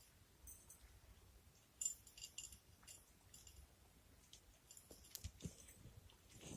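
Faint, crisp crunching clicks of cats chewing dry kibble, in two short clusters: about two seconds in and again near five seconds in.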